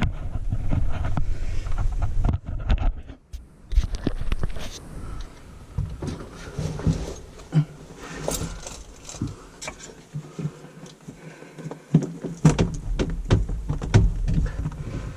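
Irregular clicks, knocks and scraping of plumbing parts being handled and pushed together while a drain pipe is fitted into a rubber band-clamp coupling, with rumbling handling noise between.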